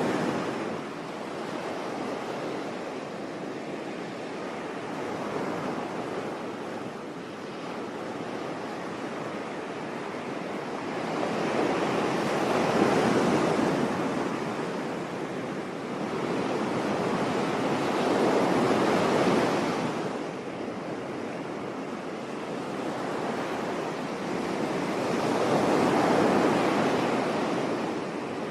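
Sea surf washing onto a beach: a continuous hiss of water that swells into a louder wave about every six to seven seconds in the second half, then falls back.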